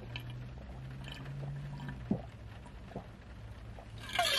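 Someone gulping ginger ale on ice from an insulated bottle: several soft swallows about a second apart, with a louder rush of liquid and ice near the end. A low steady hum sits underneath.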